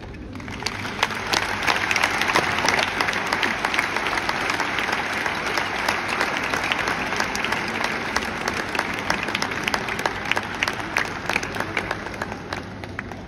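Audience clapping, building up about half a second in and slowly thinning toward the end.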